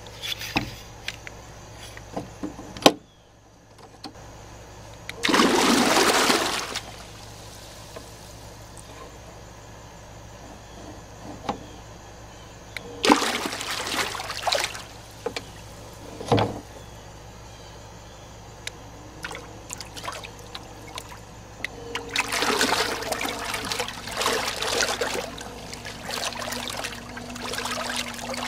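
Old 12-volt electric trolling motor, a Phantom Bantam, running submerged in a half barrel of water, its propeller churning and splashing the water. The splashing comes in several louder surges lasting one to a few seconds, with quieter churning between. A steady whine joins in the last few seconds.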